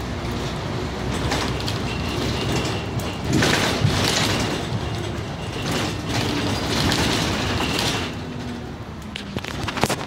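Inside a Scania N94UB single-decker bus slowing toward a stop: engine and road noise with several bursts of hissing about a second long, and a run of rattling clicks near the end.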